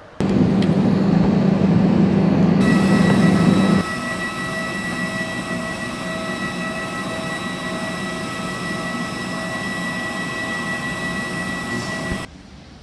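Jet airliner noise on the apron: a loud rumble with a low hum for the first few seconds, then a steady high-pitched whine made of several tones, which cuts off suddenly near the end.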